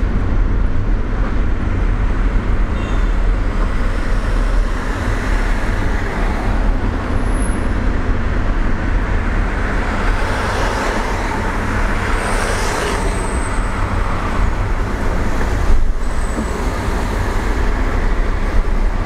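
Road noise inside a moving car's cabin: a steady low rumble of engine and tyres with passing traffic, swelling for a few seconds about halfway through.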